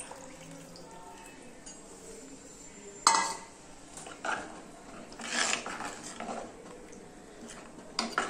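A steel ladle stirring thin curry in a clay pot, with scraping and metal clinks. There is a sharp, loud clink about three seconds in and another near the end.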